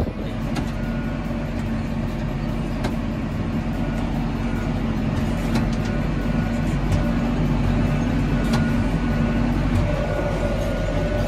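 Tractor engine running at a steady speed while silage is fed out, heard from inside the closed cab.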